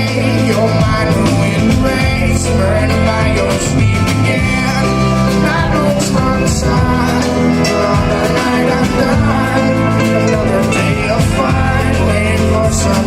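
Live band playing an instrumental jam: guitar lines over sustained bass notes and drums with steady cymbal hits.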